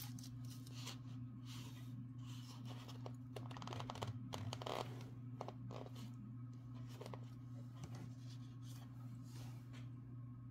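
Bead and craft-supply packages being handled: light rustling and scattered clicks, busiest about three to five seconds in, over a steady low hum.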